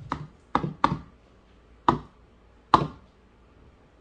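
A raw egg knocked against the rim of a plastic mixing bowl: about five light, irregularly spaced taps as a child tries to crack the shell, which does not break yet.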